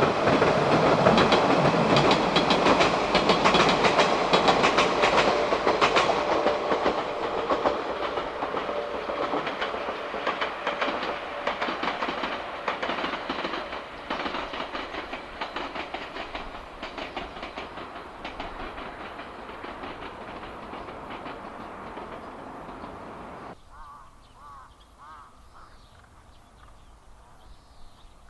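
A Yoro Railway electric train running, its wheels clacking rapidly over the rail joints, the sound fading steadily as it moves away. About five seconds before the end it cuts suddenly to a much quieter background with faint high chirps.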